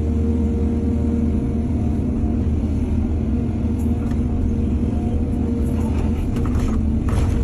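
Excavator's diesel engine running steadily under load, with a few brief clatters near the middle and end as it works.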